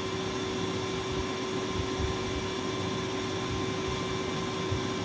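Steady background hiss with a constant mid-pitched hum, unchanging throughout.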